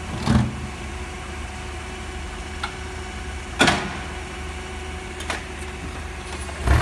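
Toyota propane forklift engine idling steadily, with two sharp knocks, one just after the start and a louder one about three and a half seconds in.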